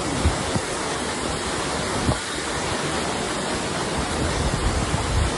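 Torrential rain and running floodwater make a steady rushing hiss, with a couple of faint knocks.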